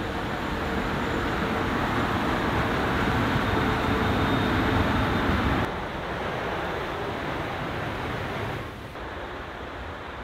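Steady rushing run of the electric hovercraft's brushless-motor fans. It builds over the first few seconds, then drops sharply a little past halfway and again near the end.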